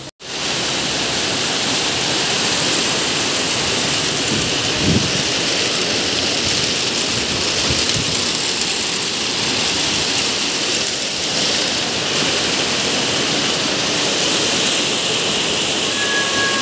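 Heavy downpour: a loud, steady rush of rain falling.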